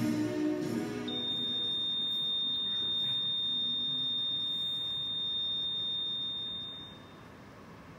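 Music fades out in the first second, then one long, steady, high-pitched electronic beep, a single pure tone, holds for about six seconds and cuts off near the end.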